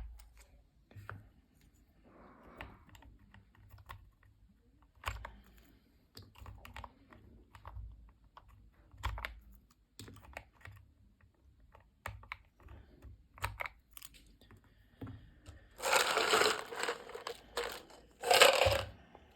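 Mechanical keyboard switches being handled and pushed into the sockets of a hot-swap switch tester: scattered sharp plastic clicks and taps. Near the end come two louder bursts of handling noise, each about a second long.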